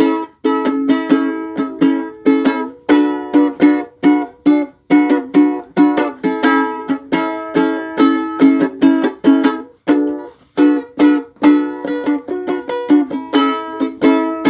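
Ukulele strummed through a simple chord progression in a steady rhythm, about two strums a second, each chord ringing briefly before the next.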